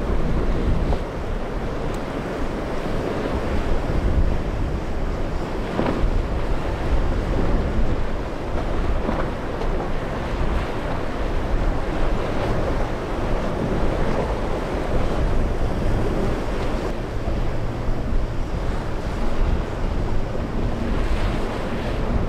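Wind buffeting the microphone over breaking waves and surf, with an outboard boat running through the choppy water underneath.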